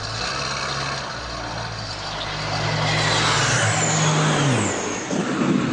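A low-flying plane passing the camera. Its engine noise swells to a peak, then drops in pitch and fades as it goes by.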